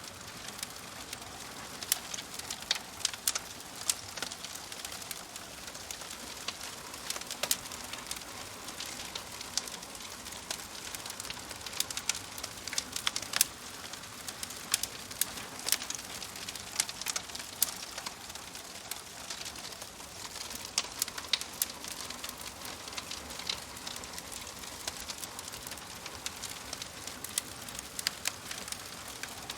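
Wood fire burning in a fireplace: logs crackling and popping in irregular sharp snaps over a steady soft hiss of the flames.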